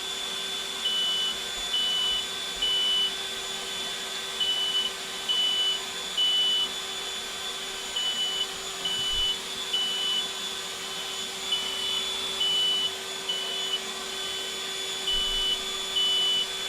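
Smoke alarm beeping in the fire-alarm pattern of three beeps and a pause, repeating five times, set off by smoke from cooking. A steady hum runs underneath.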